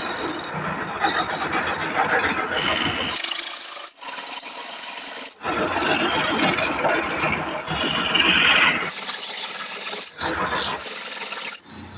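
Wood turning on a lathe: a turning tool scraping and shaving the spinning wood. It comes as a series of short stretches that change abruptly.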